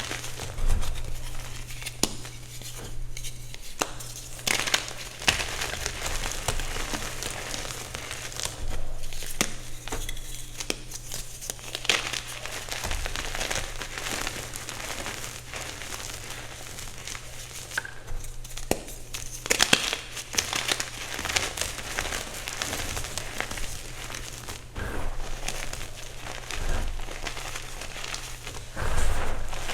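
Reformed gym chalk being crushed, crunching and crumbling in dense, irregular crackles with sharper snaps scattered through, over a faint steady low hum.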